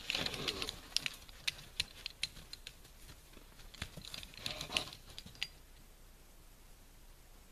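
Metal clicks and rattles of a foothold trap's chain as a trapped white wolf lunges against it, with scuffling in the snow. A string of sharp clicks comes in the first few seconds, then a rush of scuffling and rattling about four to five seconds in.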